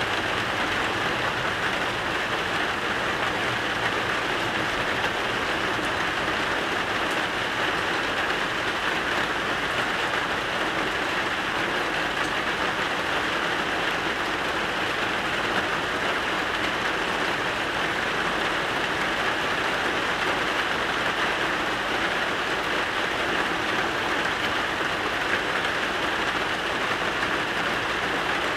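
Steady rain falling, an even hiss of rain on surfaces that holds constant throughout.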